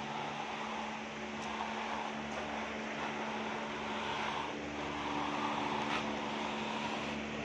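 A profile template scraping along a wet gypsum cornice moulding as it is run to shape, in a few swelling strokes, over a steady machine hum.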